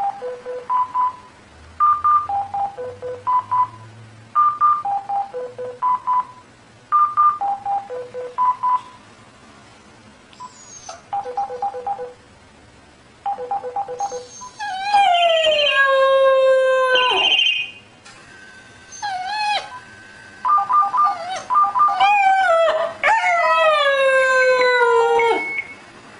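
An old mobile phone plays a beeping ringtone melody, one note at a time, and about halfway through a German Shepherd puppy howls along. It gives two long howls that slide down in pitch, with the ringtone still beeping between them.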